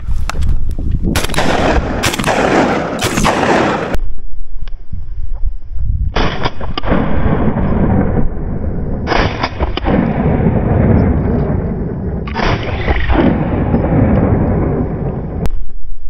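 Loud wind buffeting the microphone: a constant deep rumble with long rushing gusts every few seconds.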